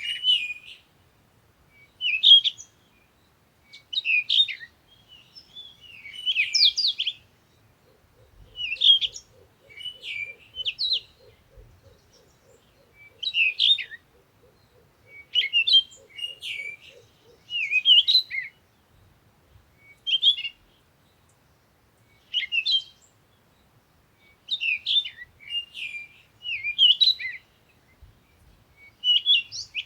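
Birds singing: short, high chirping phrases repeating every second or two.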